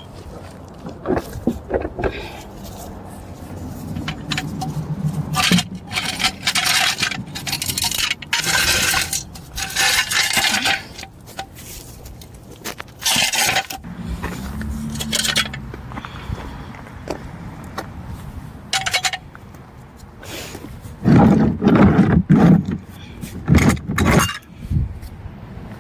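Metal jack stands and floor jack being handled under a car: repeated clanks, clinks and scrapes of steel on the ground, loudest in a cluster of knocks about three-quarters of the way through.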